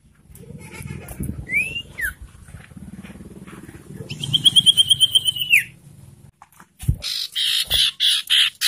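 Common iora calling: a whistled note that rises then falls, then a long rapid trill lasting about a second and a half, followed near the end by a run of harsh, scratchy chattering notes. A low background rumble runs under the first part and stops about six seconds in.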